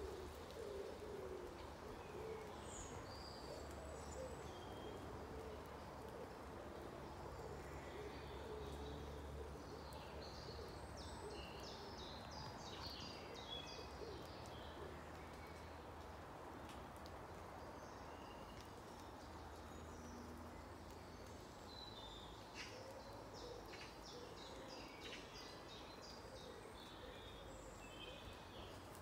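Woodland birdsong. Low, repeated cooing calls sound in the first few seconds and again over the last several. Small songbirds sing brief, high chirping phrases, thickest in the middle and near the end, over a faint low rumble.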